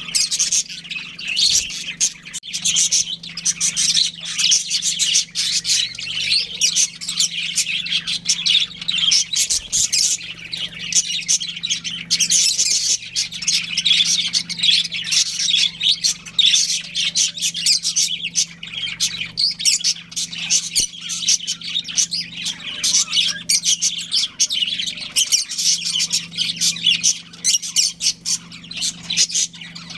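Budgerigars chirping and chattering non-stop, many quick overlapping chirps, over a faint steady low hum.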